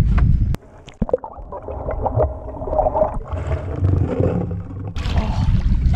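Wind buffeting the microphone, cut off suddenly about half a second in, then water splashing and gurgling close to the microphone as a redfish is scooped into a landing net. The wind noise returns near the end.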